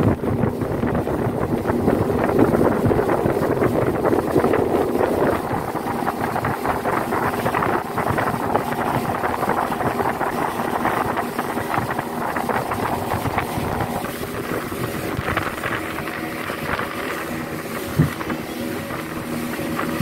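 A 75-horsepower speedboat's outboard motor running steadily at cruising speed, with water rushing past the hull and wind buffeting the microphone. A single thump sounds near the end.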